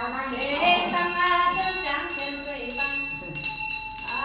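A chanting voice sings a Then ritual chant, with a bunch of small jingle bells shaken in a steady, repeating rhythm.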